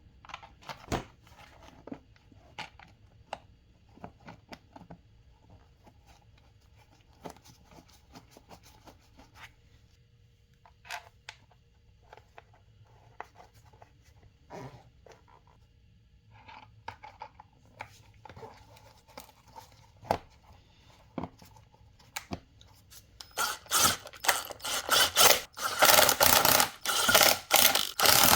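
Scattered light clicks and scrapes of tools and parts being handled. From about 23 seconds in, a hand ratchet wrench clicks rapidly in loud repeated bursts as bolts are run in.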